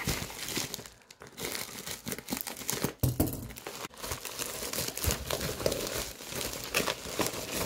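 Plastic poly mailer bag crinkling and rustling as it is handled and torn open, with hands reaching in to pull out the contents.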